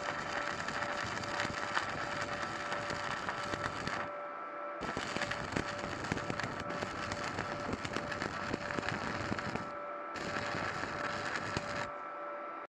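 Stick (MMA) arc welding with an INGCO 250 A inverter welder: the electrode arc crackles and sizzles continuously, breaking off briefly about four seconds in and again near ten seconds. A steady tone runs underneath throughout.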